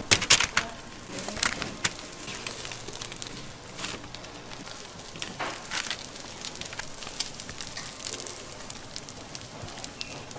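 Battered jeon sizzling and crackling as it fries in oil in a hot pan, with a few sharper clicks and pops in the first couple of seconds.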